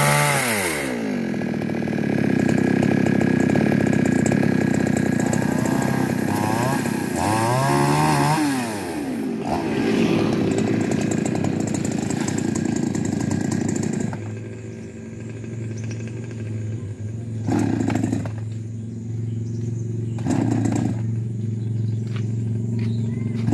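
Chainsaw engine revving and running under load while cutting into wood, then dropping to a steady idle a little past halfway, with a couple of brief blips of the throttle.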